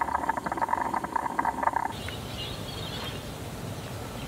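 Kettle on a camp stove at the boil, water bubbling and steam sputtering out, for about the first two seconds. It then stops abruptly, and only a fainter steady background noise remains.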